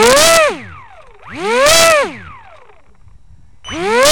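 Brushless electric motor and propeller of an Easy Star RC plane being revved in short throttle blips, about two seconds apart. Each blip is a whine that rises in pitch, holds briefly and falls away.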